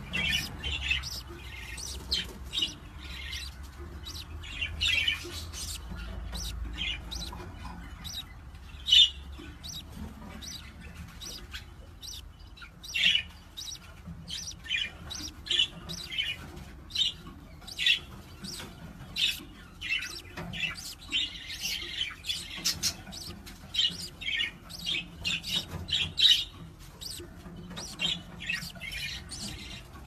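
Budgerigars chirping: many short, high chirps and squawks, irregular, sometimes several a second.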